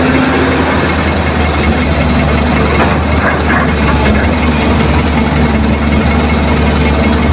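Heavy diesel engines running steadily: an excavator digging soil beside an idling dump truck that it is loading.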